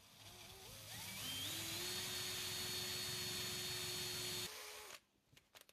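Cordless drill drilling into an aluminium gantry plate: the motor whine rises in steps as the trigger is squeezed, runs steady for about three seconds, drops briefly to a lower pitch and stops about five seconds in. A few faint clicks follow.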